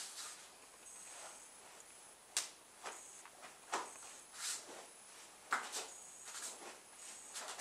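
Karate kata movements: the cotton gi and hands give three sharp snaps among softer swishes as blocks and strikes are thrown.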